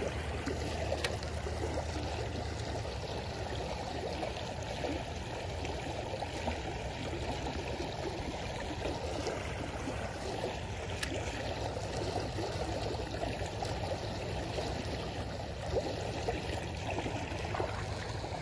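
Shallow creek water flowing steadily over a rocky riffle.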